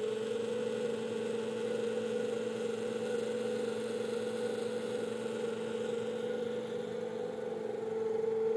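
Belt-driven dynamic balancing machine spinning a large Caterpillar GT5733 turbocharger cartridge assembly at steady speed: a constant whirring hum with a strong steady tone. The rotor carries a test weight that deliberately throws it out of balance.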